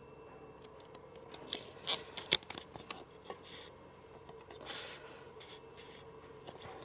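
Faint scattered clicks, rustles and scrapes of handling, with one sharp click about two seconds in, over a faint steady hum.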